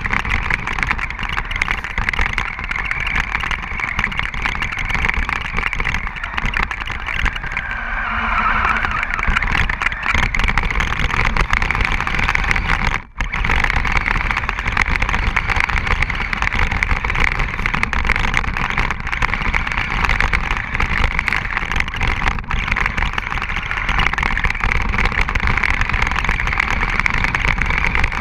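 Radio-controlled truck driving over snow, heard from the camera mounted on it: a steady, loud rush of motor, drivetrain and tyre noise. It drops out sharply for a moment about halfway through.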